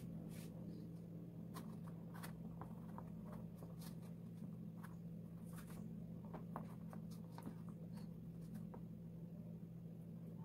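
Hand and fingers rubbing wet epoxy resin across a painted canvas: faint, scattered scratchy strokes and light ticks over a steady low hum.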